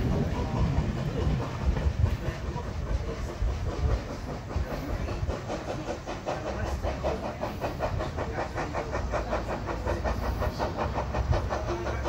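Passenger train of heritage coaches running away along the line, a steady low rumble of wheels and rails.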